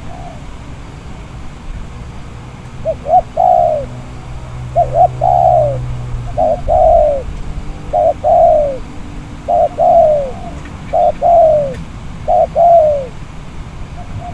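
Spotted dove (tekukur) cooing loudly, repeating its song seven times about every one and a half seconds. Each phrase is two short notes followed by a longer falling coo.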